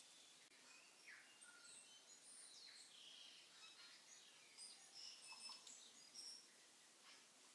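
Faint scraping and short high squeaks of a wooden spoon stirring sliced onions in oil around a stainless steel Instant Pot insert, over a quiet hiss.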